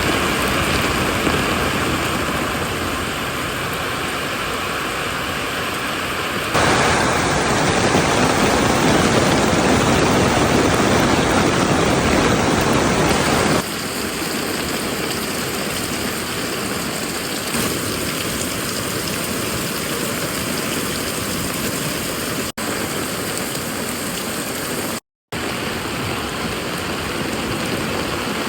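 Steady rain falling, a continuous even hiss. It jumps louder about six seconds in and drops back about fourteen seconds in, and cuts out completely for a moment near the end.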